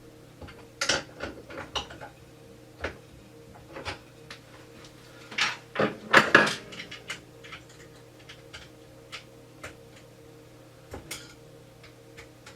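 Wrench clinking and scraping on the steel die and lock ring of a progressive reloading press while the bullet-feed die is loosened and lowered slightly. Scattered sharp metal clicks, busiest about halfway through, over a steady low hum.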